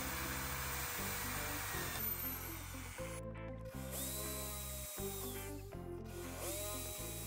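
Power drill boring holes through a carbon fiber landing gear and the plywood beneath it, in spells with short breaks. Background music plays throughout.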